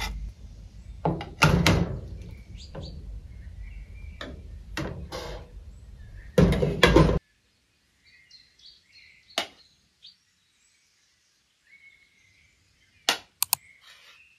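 A metal ladle scraping and clanking against a cooking pot and a metal serving dish as stew is spooned onto rice, cutting off suddenly about seven seconds in. After that it is quiet apart from faint chirping and a few sharp clicks of a spoon on a metal plate near the end.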